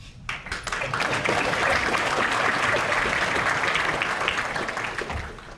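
Audience applauding in a courtroom, many hands clapping. The applause swells quickly in the first second, holds steady, then fades away near the end.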